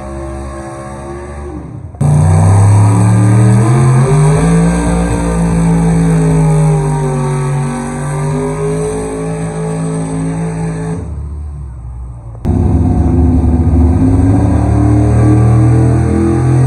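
Pulling pickup trucks' engines running hard under load as they drag a weight-transfer sled, the pitch rising and falling with the revs. The sound jumps abruptly louder about two seconds in and again near the end, where one run cuts to the next.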